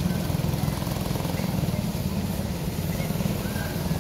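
Small go-kart engines running as karts lap the track, a steady low buzzing drone.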